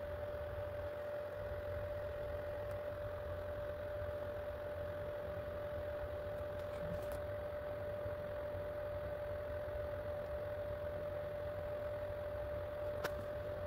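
Steady hum of an idle 3D printer's cooling fans, with a constant whine over it, and a single click near the end.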